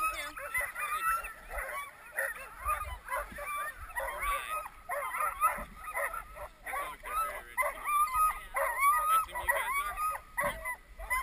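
A team of sled dogs in harness yelping and barking, many high calls overlapping without pause.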